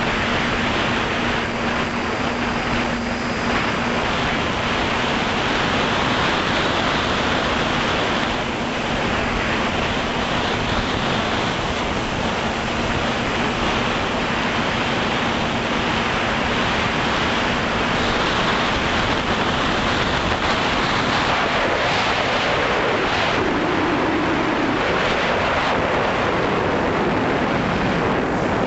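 Wind rush and motor noise picked up by the onboard camera of a flying FPV drone: a steady, even hiss with a faint hum underneath, which briefly rises a little in pitch about three quarters of the way through.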